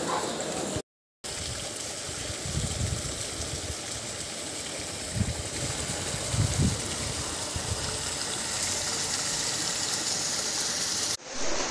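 Floodwater rushing along a flooded street, a steady hiss, with a few low rumbles and a brief silent gap about a second in.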